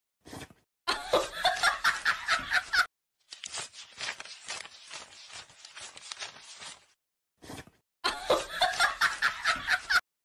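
A person laughing in quick, rhythmic bursts, loudly twice for about two seconds each, with softer pulses of laughter in between.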